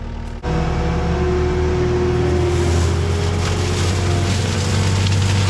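Skid steer's diesel engine running steadily at working speed, with a strong low hum. It starts abruptly about half a second in.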